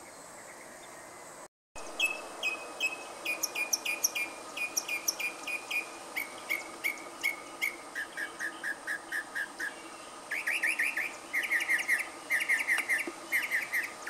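A songbird singing in runs of repeated notes: clear notes about twice a second, then a lower series, then quick chattering trills, each pattern repeated several times before switching. It begins after a faint steady insect hum that cuts off abruptly.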